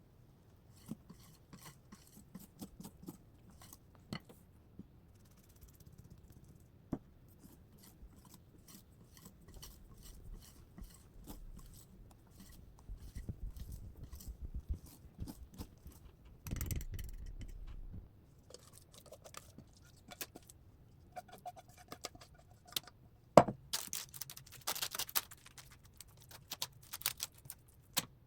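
Kitchen utensils and dishes being handled: scattered clicks, taps and scrapes, with a short rushing noise about two-thirds of the way through and one sharp, loud knock soon after.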